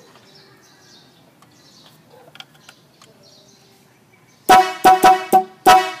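Manhattan-type 'giant snail' electric horn (Big H) sounding five short, loud blasts in quick succession, starting about four and a half seconds in: four close together, then one more after a short gap.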